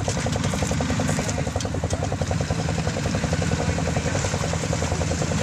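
Engines of a 2011 Argo 6x6 amphibious vehicle on Adair tracks and four-wheelers running steadily with a fast, even beat, while the Argo tows a four-wheeler stuck in mud.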